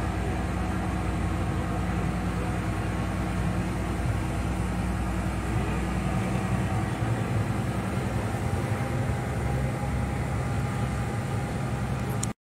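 Steady drone inside a moving truck cab on a wet road: a low engine hum with road and tyre noise. It cuts off suddenly with a short click near the end.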